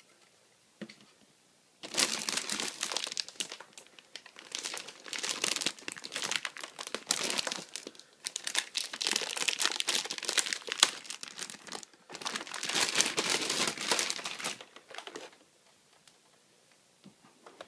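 Clear plastic bag crinkling as it is handled and pulled off a toy vending machine, in several bouts with short pauses between them, going quiet a couple of seconds before the end.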